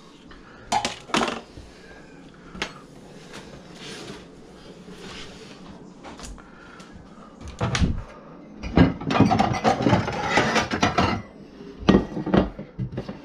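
Kitchenware being handled on a countertop: a few knocks early on, a longer stretch of clatter and rustling in the second half, and knocks near the end as a plate and fork are set down.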